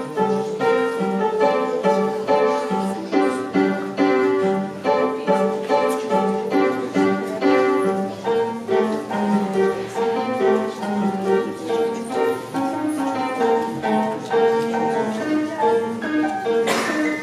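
Piano being played: a continuous run of notes at a steady, even pulse. A short burst of noise cuts across the music near the end.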